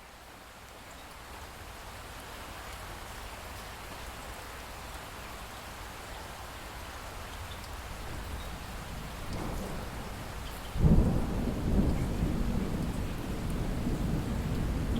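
Steady rain with dripping, slowly fading up. About nine seconds in a low rumble of thunder builds, then thunder breaks suddenly and loudly near eleven seconds and rolls on in low rumbles.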